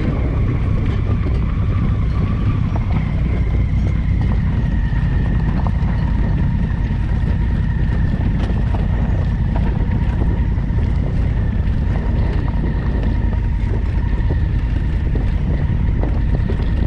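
Adventure motorcycle under way: a steady engine drone buried in heavy wind rumble on the microphone. Small clicks and knocks run through it, along with a faint steady high whine.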